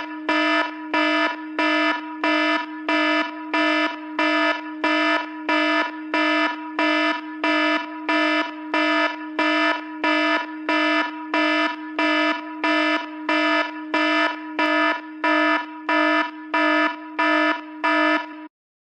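Apple ringtone in an electronic alarm style: a buzzy, steady-pitched tone that pulses loud about one and a half times a second, then cuts off suddenly near the end.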